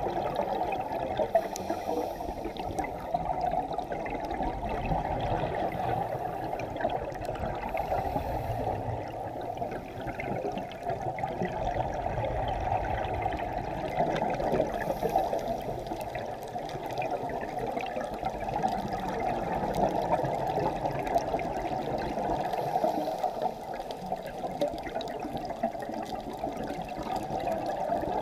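Steady, muffled underwater water noise, picked up by a camera sealed in its waterproof housing on a scuba dive.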